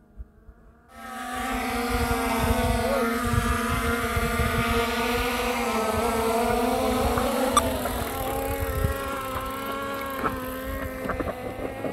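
A motor running at a steady high speed: its buzzing pitch holds nearly level, after the sound rises sharply about a second in.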